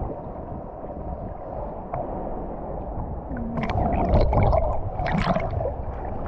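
Sea water sloshing and splashing in small waves, with faint distant voices calling out in the middle and a few sharp splashes.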